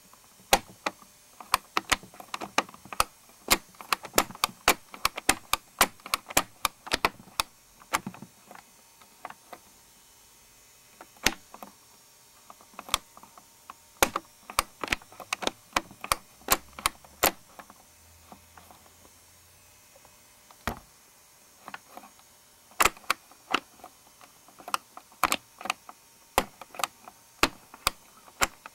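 Irregular sharp plastic clicks and clacks from the moving mechanism of a BMW R90S plastic model engine kit. They come thick at first, thin out about a third of the way in, then return in clusters.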